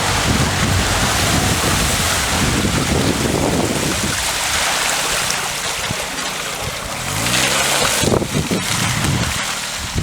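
Car driving off-road through mud, engine running under a steady wash of splashing and wind on the microphone, with the engine pitch rising and falling briefly about seven seconds in.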